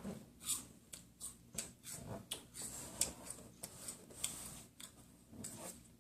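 Wafer cookies being bitten and chewed: a quick, irregular string of crisp crunches.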